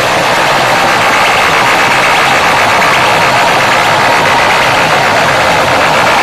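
Banks of horn loudspeakers blaring at full volume, a steady, heavily distorted din that overloads the microphone.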